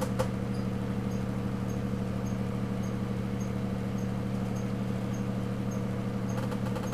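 Steady low hum of room tone, with a faint click just after the start as the shotgun is handled.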